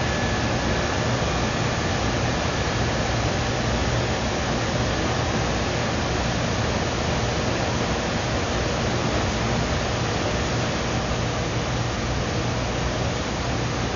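Steady, even hiss with a low hum underneath and a faint high tone; nothing starts or stops.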